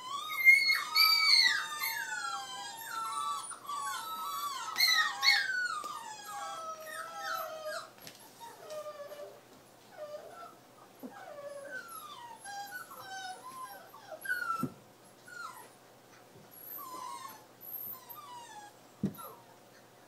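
Nova Scotia duck tolling retriever puppy whining and whimpering: a run of high-pitched whines gliding up and down, loudest and nearly unbroken over the first several seconds, then fainter and in short broken bits. Two dull knocks come in the second half.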